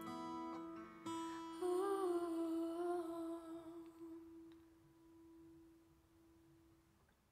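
Takamine acoustic guitar strummed once more, its last chord ringing out, under a single hummed note that wavers at first, then holds and slowly fades away near the end.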